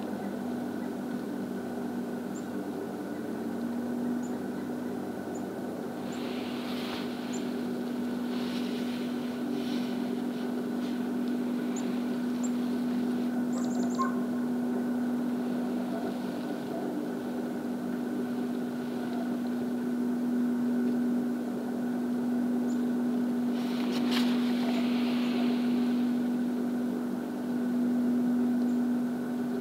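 A steady low mechanical hum holding one constant pitch, with a few faint high chirps over it and two brief soft rushes of noise, one about six seconds in and one near the end.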